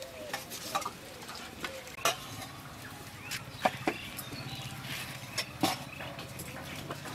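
Scattered light clicks and knocks of plates and food being handled at a meal, with a low steady hum setting in about two seconds in.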